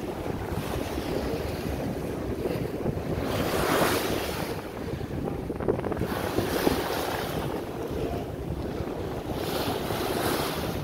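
Wind buffeting the microphone over the wash of harbour water on the open deck of a moving Star Ferry, a steady rushing that swells about three seconds in and again near the end.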